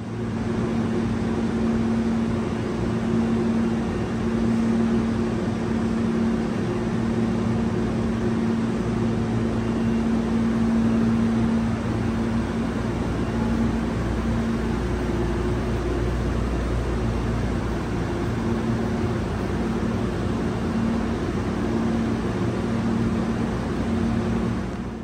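Hankyu electric train running: a steady rumble with a constant low hum, holding at an even level throughout.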